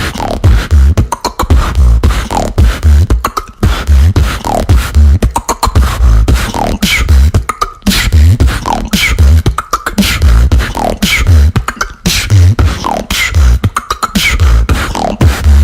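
Solo beatboxing: deep bass kicks in a steady rhythm with sharp mouth clicks and snares, and a falling vocal pitch slide that recurs about every two seconds.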